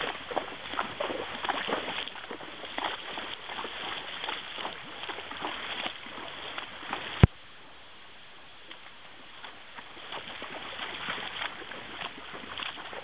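A horse's hooves splashing and sloshing step by step through shallow creek water. A single sharp click comes about seven seconds in, after which the sound drops for a couple of seconds before the steps return, now on wet stones.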